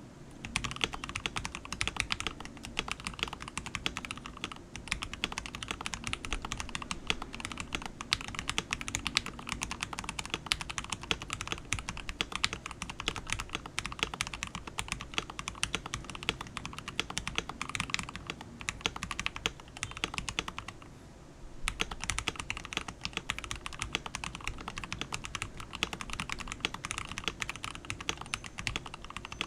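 Continuous typing on a KBD67 Lite gasket-mount mechanical keyboard with lubed Gateron Yellow linear switches and thick PBT Cherry-profile keycaps: a steady stream of keystroke clacks, with a pause of about a second about two-thirds of the way through.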